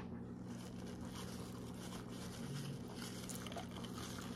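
Faint soft ticks and squishes of fingers gathering rice on a plate, over a low steady hum.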